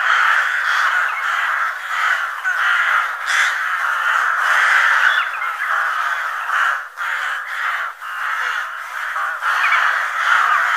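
A flock of crows cawing, many harsh calls overlapping into a continuous din.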